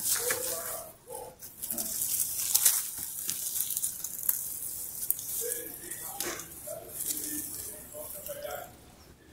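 Leaves and twigs rustling and crackling against the microphone as the phone is pushed through foliage, starting suddenly and stopping just before the end.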